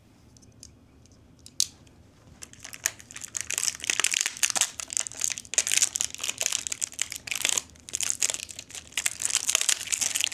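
Packaging crinkling and tearing as it is cut and pulled away from a new putter, with a few clicks at first and then dense, continuous crackling from about two and a half seconds in.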